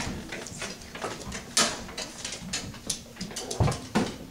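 Classroom clatter of rulers being handled and tapped on desks: scattered clicks and knocks, with a sharp click about a second and a half in and a duller thump near the end.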